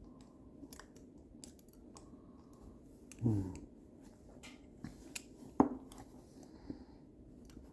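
Lever-lock picks scraping and ticking inside a lever lock as it is being picked, with scattered small clicks and one sharp click a little past halfway. About three seconds in, a short low sound slides down in pitch.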